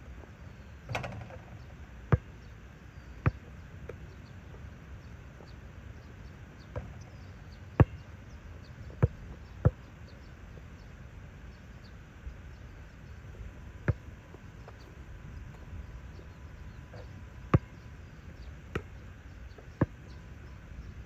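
Basketball bouncing on an asphalt court, about nine sharp separate bounces at irregular intervals, after a brief rattle about a second in as a jump shot reaches the hoop.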